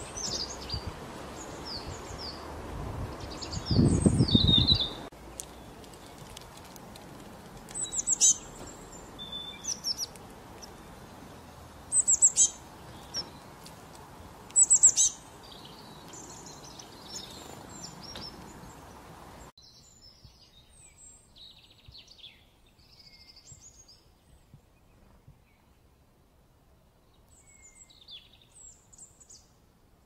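Small songbirds chirping and calling in short high-pitched notes, scattered through several spliced outdoor recordings, with a few louder calls around the middle. A loud low rumble about four seconds in.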